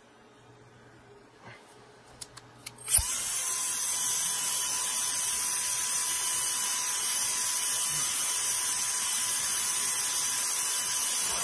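Handheld high-speed turbo fan switched on about three seconds in. It spins up in a moment, then runs steadily with a rush of air and a high, thin whine above a fainter lower tone. Before it starts, only a few faint clicks of handling.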